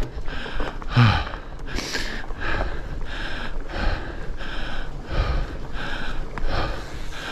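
A mountain biker's heavy, rapid breathing close to a helmet-chin-mounted microphone, about three breaths every two seconds, over low rumble from the fat bike rolling down the trail.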